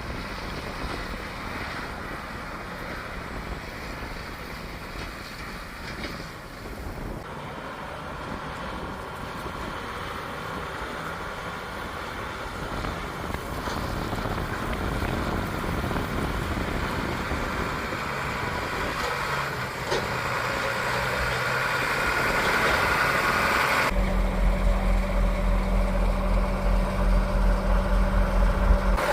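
Heavy harvest machinery engines running with steady mechanical noise that slowly grows louder. Near the end it changes abruptly to a steady, deep engine drone heard close up.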